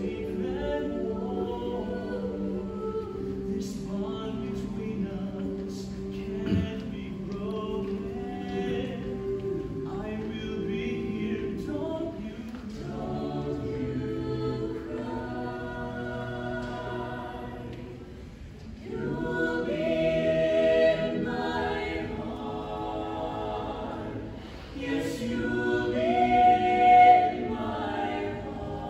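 Mixed a cappella vocal ensemble of men's and women's voices singing in close harmony, with no instruments. The singing grows louder about two-thirds through and again near the end, where a high held note stands out.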